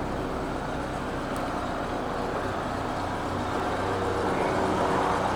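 Renault Clio RS 2.0's naturally aspirated four-cylinder engine running steadily, its engine assembly newly replaced; it grows a little louder near the end.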